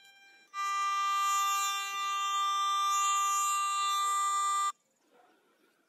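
Garrett ATX metal detector sounding a steady, buzzy target tone that starts about half a second in, holds for about four seconds and cuts off suddenly. The tone is the detector, in static mode, signalling a buried coin under its coil.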